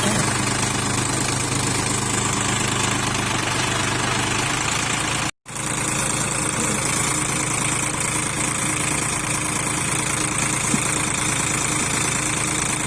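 Sonalika 45 HP tractor's diesel engine running steadily. It cuts out to silence for a moment about five seconds in, then resumes with a slightly different note.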